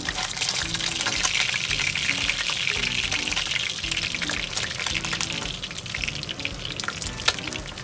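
Rainbow trout karaage shallow-frying in oil in a frying pan, a steady sizzle with dense crackling pops throughout. Background music plays quietly underneath.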